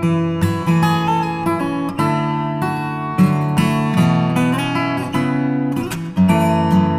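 Instrumental background music on guitar, with plucked notes and chords following one another.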